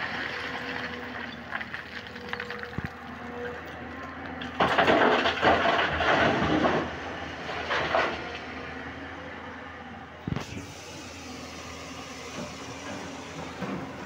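JCB 205 tracked excavator's diesel engine running steadily, with a loud rumbling clatter of rock pouring from its bucket into a dump truck's steel body for about two seconds near the middle, then a shorter surge of falling rock. A single sharp knock follows a couple of seconds later.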